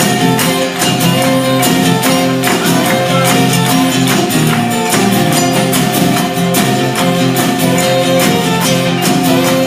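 Live band playing an instrumental stretch of a country song: held instrument notes over a steady, even percussion beat, with no singing.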